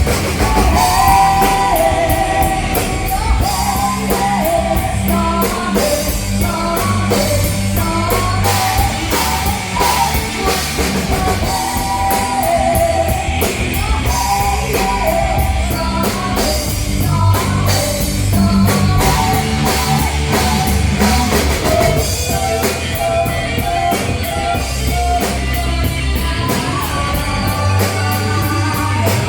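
Loud rock music with a singer's voice carrying the melody over drum kit and guitar.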